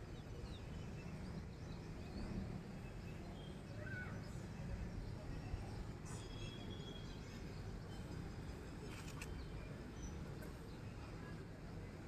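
Quiet outdoor ambience: a steady low rumble with a few faint, brief chirps.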